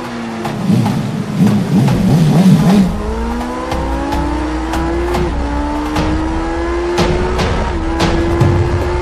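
Motorcycle engines running under acceleration. The pitch climbs steadily, then drops back sharply twice, with a louder fluttering stretch in the first few seconds and sharp clicks throughout.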